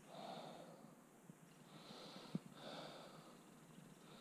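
A person breathing near the microphone, several soft breaths, with one short sharp click a little past the middle.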